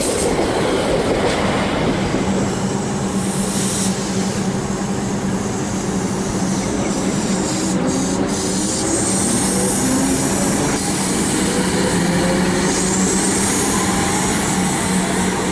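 Comeng electric suburban train running along a station platform and pulling away, its wheels rumbling on the rails under a steady hum. From about halfway through, a whine from its traction equipment climbs slowly in pitch as the train gathers speed.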